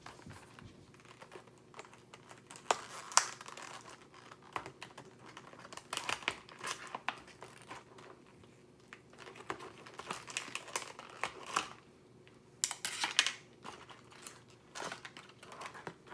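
Toy packaging being opened by hand: plastic crinkling, tearing and light tapping clicks in irregular bursts, loudest about three seconds in and again near the end.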